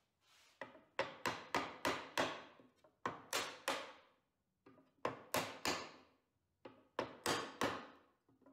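Wooden mallet striking a wood block held against a walnut board, driving a glued dovetail joint home. Sharp knocks come in quick bursts of three to five blows, about three a second, with short pauses between bursts.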